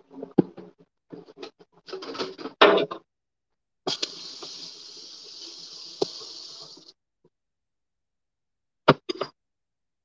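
Kitchen handling noises: a run of knocks and clicks as things are moved about, then a steady hiss for about three seconds that cuts off suddenly, then two sharp clicks near the end.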